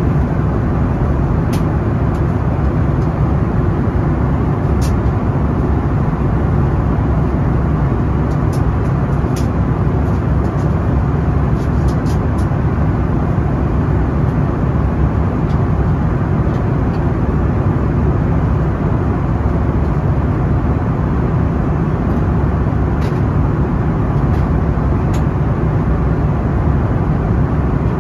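Airliner cabin noise from inside the cabin: the jet engines and rushing air make a loud, steady low drone, with a few faint clicks.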